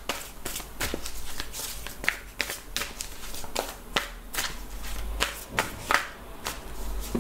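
A deck of tarot cards being shuffled by hand: an irregular run of soft card taps and slaps, a few a second.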